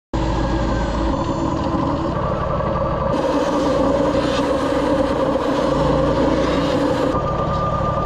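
Wood-Mizer LT40 portable band sawmill running steadily while a pine log is loaded and sawn, its engine drone changing abruptly a few times.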